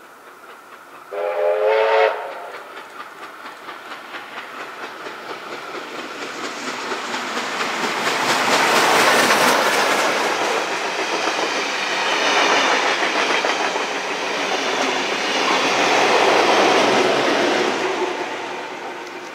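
Steam locomotive 3237, a NSW 32 class 4-6-0, gives one whistle blast about a second in. Its exhaust beats then grow louder as it approaches and passes, followed by the rumble and clatter of its passenger carriages' wheels going by.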